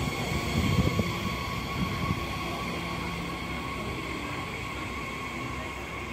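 DB Class 445 double-deck electric multiple unit pulling away. Wheel rumble with a few knocks in the first two seconds, over a steady high whine, all slowly fading as the train recedes.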